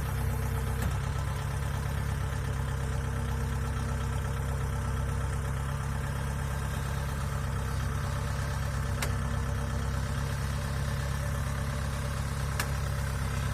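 Kubota DC70 Plus combine harvester's diesel engine running steadily with a low, even drone, with a couple of light clicks late on.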